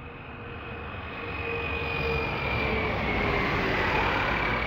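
Jet airliner's engines on landing approach, getting louder as the aircraft passes close. A high whine and a lower tone drift slowly down in pitch over the steady rush of jet noise.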